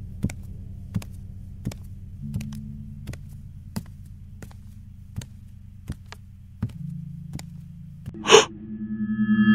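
Tense soundtrack bed: a low steady drone with a faint, even ticking about every three-quarters of a second. About eight seconds in comes a short, sharp gasp, and music starts swelling up near the end.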